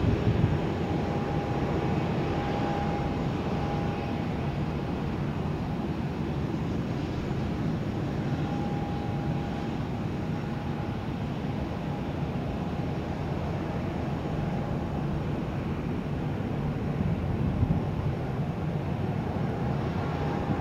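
Airplane jet engines running steadily, with a faint high whine that comes and goes.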